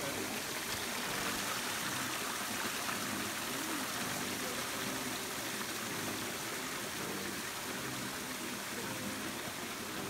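Steady rush of water from a waterfall spilling over rocks into a stream.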